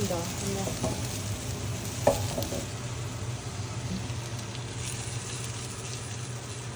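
Kimbap slices frying in a non-stick pan, sizzling steadily, with one short knock about two seconds in.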